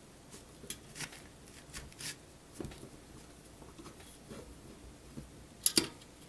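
Small clicks, taps and light scrapes of a hard drive being handled and fitted into a computer case's drive bay, with two sharp clicks in quick succession near the end.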